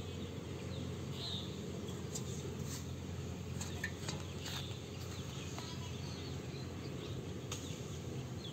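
Outdoor ambience: a steady low hum with a few short, high bird chirps now and then and faint small clicks.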